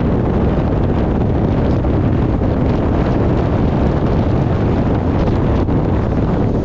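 Wind buffeting the microphone: a steady, loud, low rumble with no break.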